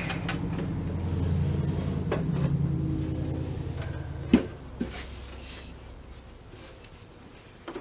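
Rummaging in a drawer of small parts: a low steady hum, then a sharp knock about four and a half seconds in and a lighter one just after, as of a drawer or cabinet door being shut.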